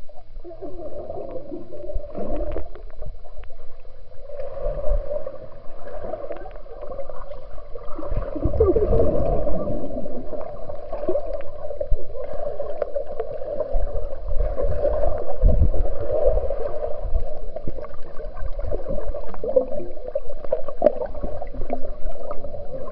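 Muffled underwater sound of a swimming pool heard through a submerged camera's microphone: continuous water rushing and bubbling, with irregular low thumps from swimmers moving in the water.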